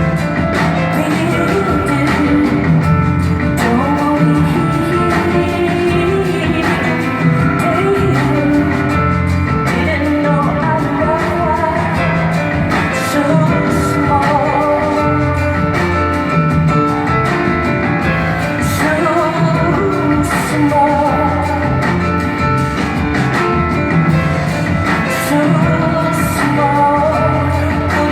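A woman singing live with a full band, over steady bass notes and regular drum and cymbal strokes, recorded in a large hall.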